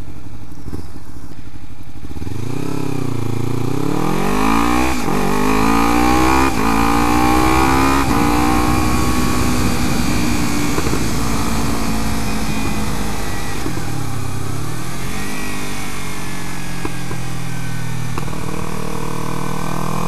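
Kawasaki Ninja 300's parallel-twin engine idling, then pulling away hard. Its pitch climbs and drops suddenly three times as it shifts up through the gears, then it settles to a steady cruise with wind rushing over the microphone. Around the middle the engine note eases off and builds again.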